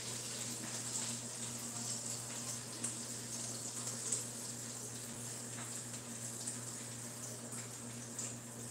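Faint, steady sizzle of hot frying grease in the pot, a soft hiss with small crackles throughout, over a steady low electrical hum.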